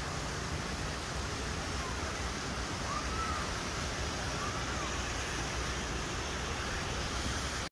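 Steady outdoor wind and surf noise, with a couple of faint bird calls about three seconds in.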